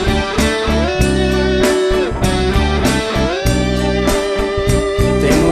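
Instrumental break in a pop-rock song: a lead guitar plays held notes that slide up and down, over bass and drums keeping a steady beat.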